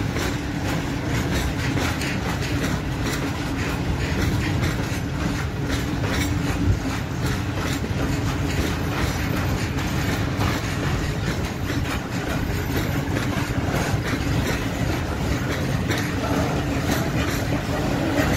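Freight train of Talbot-type hopper wagons rolling steadily past, wheels clattering over the rail joints in a continuous stream of clicks over a rumble, with a steady low hum.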